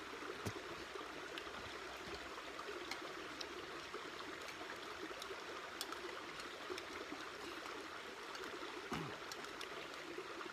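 Steady rushing noise like a stream running, with a few faint clicks.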